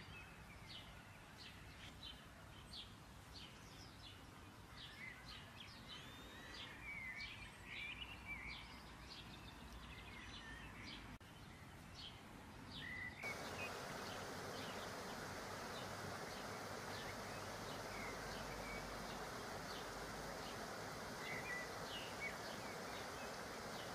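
Sfenj dough deep-frying in hot oil: a faint sizzle dotted with quick crackling pops. About halfway through, the sizzle suddenly gets louder and denser and holds steady.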